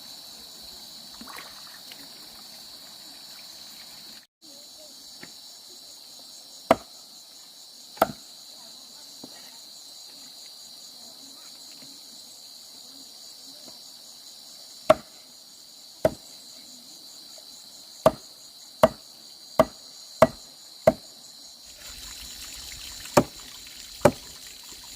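Steady high-pitched chorus of crickets or other insects, with a dozen or so sharp knocks at irregular intervals, several coming in quick succession about three-quarters of the way through, like chopping or hammering.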